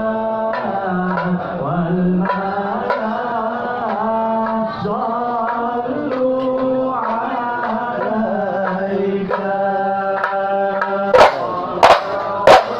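A group of men singing a sholawat (praise song for the Prophet) together in unison, with long held and gliding notes. About eleven seconds in, frame drums (rebana) come in with three loud strikes.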